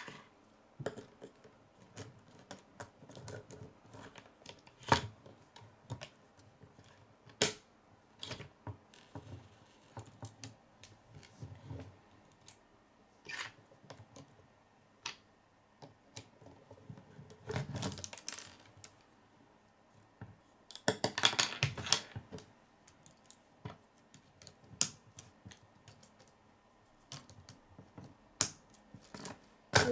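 Plastic K'nex construction pieces clicking and snapping together as a model car is assembled by hand and its wheels are fitted. The clicks come irregularly, with two longer bursts of rattling plastic, the louder one about two-thirds of the way in.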